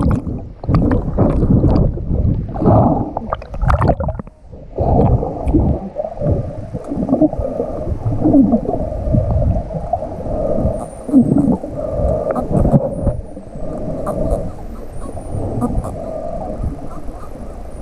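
Underwater sound picked up by a GoPro: bubbling and splashing for the first four seconds, then a steady muffled wash of water. Faint short high whistles from the dolphin pod come in through the second half.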